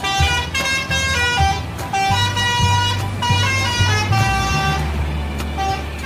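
Bus's multi-tone 'telolet' air horn playing a melody of short stepping notes, over a low steady rumble.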